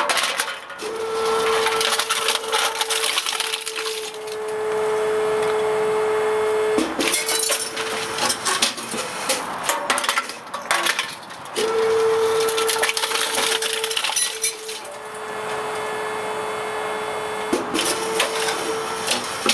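Lockwood Mammoth multi-item recycling compactor crushing drinks cans in two cycles of about seven seconds each. Each cycle is a steady motor hum under crackling and crunching metal, with knocks near its end. Cans clink in between as the next batch is dropped into the hopper.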